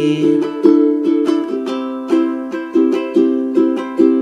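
Ukulele strummed in a steady rhythm, moving from a Dsus2 chord to a C chord about a third of the way through.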